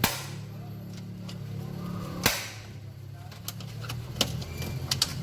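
Sharp clicks and knocks of a car's air filter and its housing lid being refitted, two loud knocks about two seconds apart with lighter clicks between, over a steady low hum.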